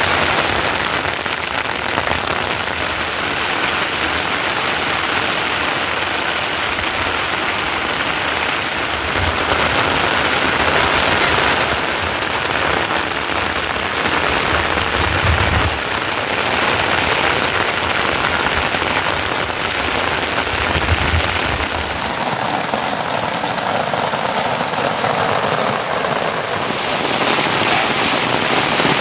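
Steady heavy rain falling, a dense even hiss, with a few brief low rumbles.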